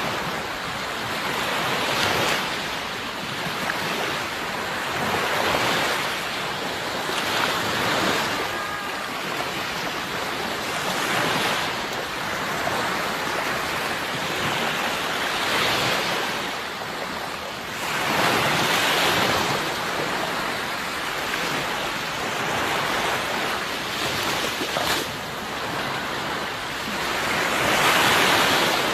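Sea waves breaking and washing up the shore, a steady rushing that swells and ebbs every few seconds, loudest near the end.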